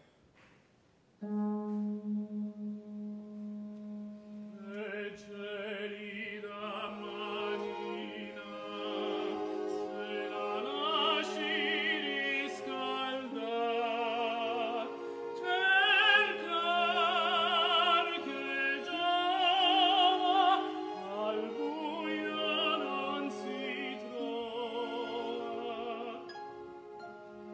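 Operatic tenor singing in Italian with strong vibrato over an orchestra. A soft held orchestral chord enters about a second in, and the voice joins a few seconds later, swelling louder midway.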